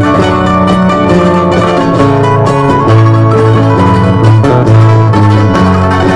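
String-band dance music: guitars and other plucked strings playing a steady tune over long, held bass notes.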